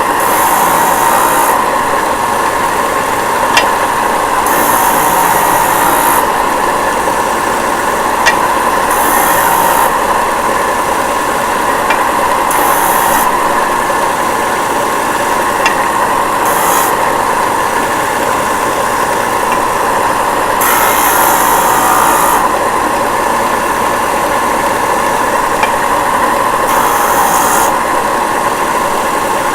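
Disc sander running steadily, with a pen blank's end pressed against the disc in about seven short, light passes, each a brief high rasping hiss over the motor's hum. The passes square the blank's end until the brass tube inside shows.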